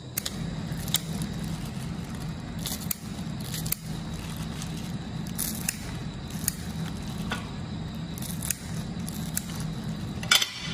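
A plastic-gloved hand handling crisp fried spring rolls, making scattered crinkles and crackles, with a louder one near the end, over a steady low hum.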